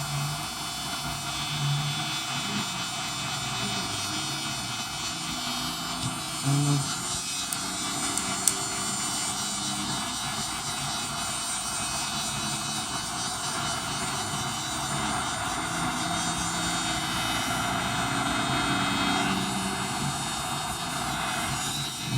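Steady rushing noise of an electric hot-air blower running continuously, with faint low murmurs under it.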